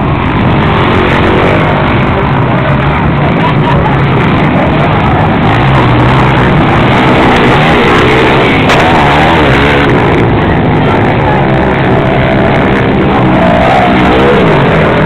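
Motocross dirt bike engines revving as riders race round the track, their pitch rising and falling. The sound is loud and dense throughout.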